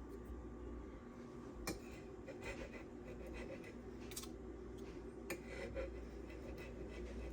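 Knife edge of M390 steel drawn across a fine diamond resin whetstone, soft scraping strokes with a few light clicks, over a steady low hum.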